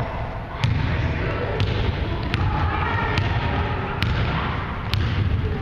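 Basketball being dribbled on a hardwood gym floor: sharp bounces a little under a second apart, six or so, over a murmur of voices in the hall.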